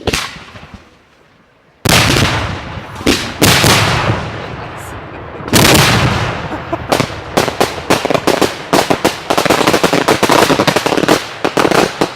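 Professional display fireworks fired at close range, up to 200 mm shells. A sharp bang comes at the start, then heavy booming bangs about two, three and five and a half seconds in. From about seven seconds they turn into a dense, rapid crackling of many quick reports.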